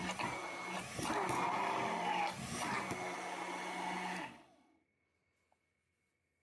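Immersion (stick) blender running in a glass jar of thick, freshly emulsified mayonnaise, the motor working as the mayonnaise stiffens; it cuts off suddenly about four seconds in.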